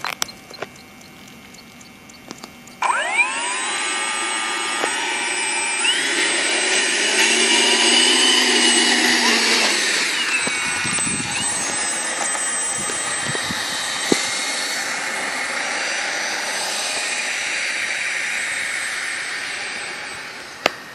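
Electric ducted fan (a high-blade-count EDF unit) of an RC foam F-16 model jet, sounding like a turbine. It spools up suddenly about three seconds in with a rising whine, then runs loud and steady with throttle changes that shift its pitch, and fades near the end.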